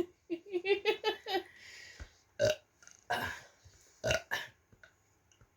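A person forcing out short burps after drinking cola: a quick run of small pitched sounds near the start, then about four brief separate burps.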